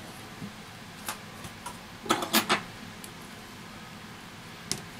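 Phone parts being handled and set down by hand: a light tick about a second in, a quick run of about four sharp clicks a little after two seconds, and another click near the end, over a steady faint hiss.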